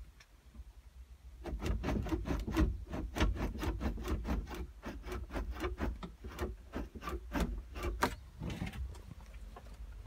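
A quick run of clicks and rubbing, about three or four a second, over a low rumble. It thickens about a second and a half in and thins out near the end.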